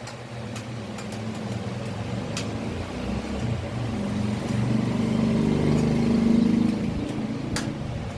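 A vehicle engine passing by, swelling to its loudest about six seconds in and then fading, with a few light clicks over it.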